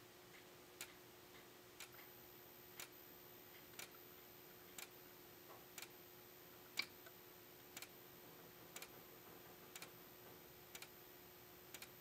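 Faint ticks about once a second from the xenon strobes of two System Sensor SpectrAlert Advance SPSR speaker strobes firing, with a faint steady hum and high whine underneath. The two units are not synchronized, so some ticks come in close pairs.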